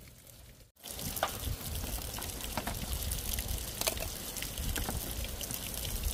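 Steady rush of running water, starting abruptly under a second in, with scattered light clicks and taps as lemongrass stalks are gathered on a woven bamboo tray.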